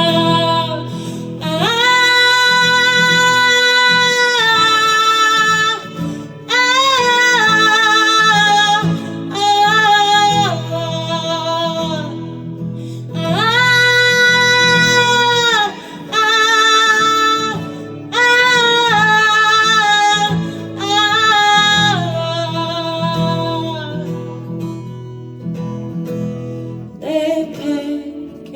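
Live song: a singer holding long notes, some with vibrato, in phrases of a few seconds over plucked acoustic guitar. The voice drops out near the end, leaving the quieter guitar.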